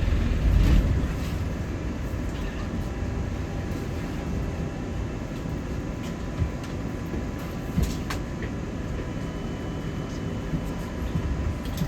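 Bus interior while moving: a steady low rumble of the bus's engine and running gear, louder for about the first second, with two short knocks about six and a half and eight seconds in.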